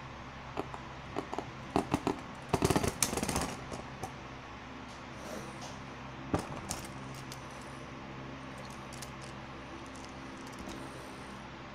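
Beyblade Burst spinning tops clicking and clattering against each other in a plastic stadium bowl. A few sharp clicks come first, then a dense rattling clash about two and a half seconds in as they grind together and stop. After that only a couple of light clicks sound over a steady low hum.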